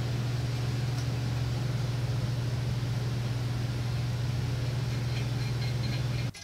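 A steady low electric hum at an even level, cutting off suddenly near the end. Faint small metallic ticks sound over it in the last second or so as a bolt is threaded into a tapped hole in steel plate.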